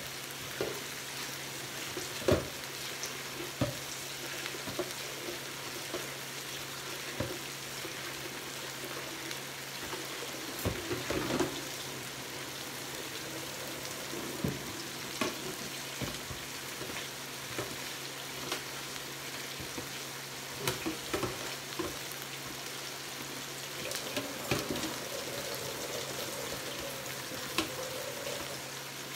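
Marinated pork chops sizzling steadily on a flat grill, with scattered clicks and knocks throughout.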